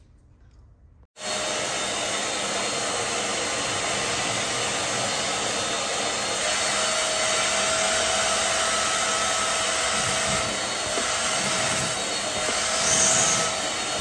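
Hoover portable carpet and upholstery cleaner running, its motor sucking water back out of a fabric chair seat through the hand nozzle. The steady motor noise starts suddenly about a second in and holds at an even level.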